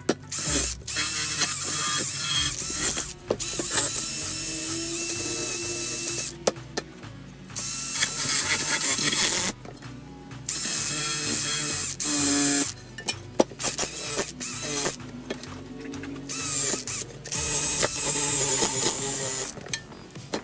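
A handheld power tool runs in repeated bursts of one to three seconds with a hissing, grinding noise, stopping and starting. Background music plays underneath.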